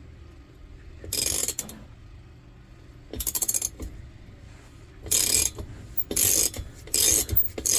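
Ratchet wrench clicking in about six short runs as a 9/16 socket backs out a Coleman lantern's fuel valve.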